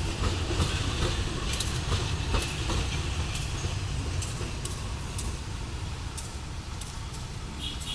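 Diesel locomotive rolling slowly past: a steady low engine rumble with irregular sharp clicks of wheels over rail joints, easing off slightly toward the end.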